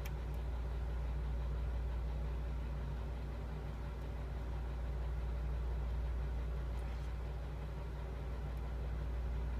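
A steady low hum, with a few faint clicks of a lock pick working the pins of a pin-tumbler lock.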